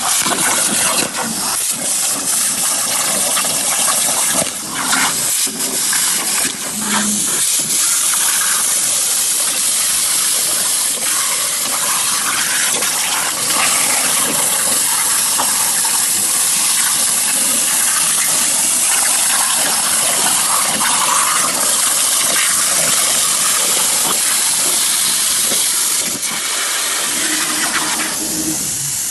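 CNC plasma torch cutting metal: a loud, steady hiss from the arc and its gas jet, broken by a few short dips and ticks in the first several seconds.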